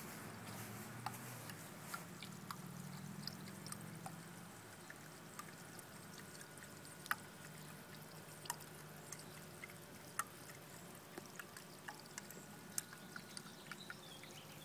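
Faint trickle of water with scattered small drips, moved by a small Topsflo TS5 solar DC pump circulating water from a bucket up a tube.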